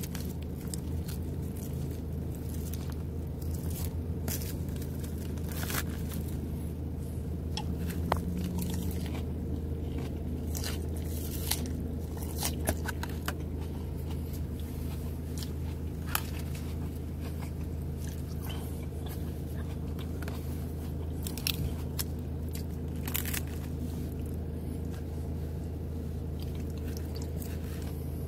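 Close-up mouth sounds of salad being bitten and chewed, with irregular crunches and occasional plastic fork scrapes, over a steady low hum.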